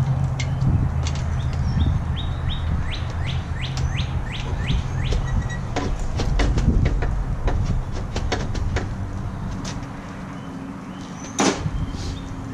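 A songbird singing a fast run of short downslurred whistles, about three a second, over a low hum that fades away. Scattered clicks and knocks come from parts being handled at the front of the car, with one sharp knock near the end.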